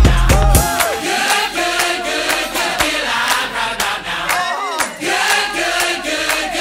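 Background music of a song: a heavy bass beat drops out just under a second in, leaving several voices singing over a light clicking beat.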